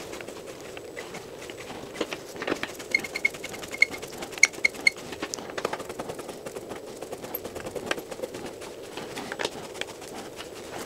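Bolts being run down by hand with a T-handle hex driver into a motorcycle top-case mounting plate: irregular light metallic clicks and ticks, some with a brief high ping, coming in quick runs.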